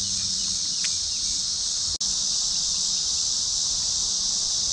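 Steady, high-pitched insect chorus that cuts out for an instant about two seconds in.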